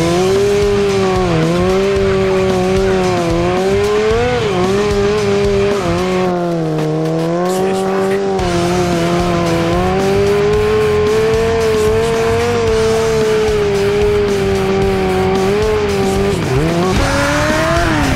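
Sport motorcycle engine held at high revs, its pitch wavering with the throttle, with tyre squeal as the rear tyre spins in a smoky burnout. Near the end the engine note dips, then climbs again.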